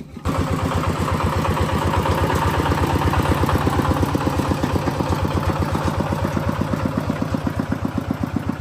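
A small engine starts up abruptly and then idles steadily with a fast, even putter.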